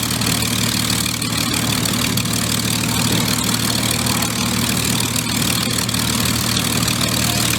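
Aerobatic airplane's nine-cylinder radial engine droning steadily, with an even hiss over it.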